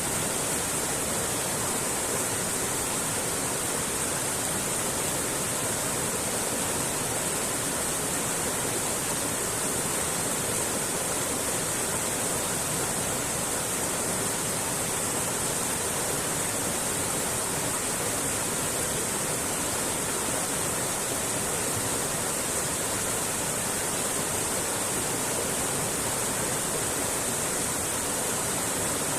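Mountain creek flowing, a steady, even rush of water with a bright hiss.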